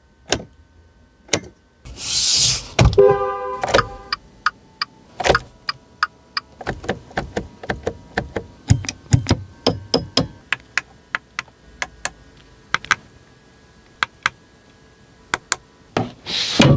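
A run of sharp clicks and knocks at an uneven pace, with a short hiss about two seconds in and another near the end, and a brief chime of several tones about three seconds in.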